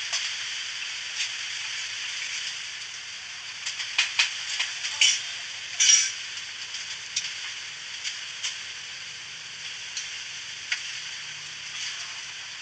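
Steady outdoor hiss with scattered short crackles and clicks, a cluster of louder ones about four to six seconds in.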